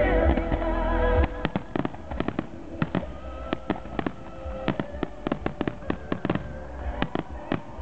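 Fireworks going off: a low rumble for the first second, then many rapid, sharp crackling pops for several seconds, with music playing underneath.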